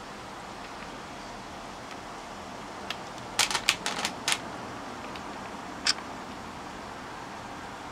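Several sharp clicks and taps in quick succession about three and a half seconds in, and a single click near six seconds, over a steady faint hiss.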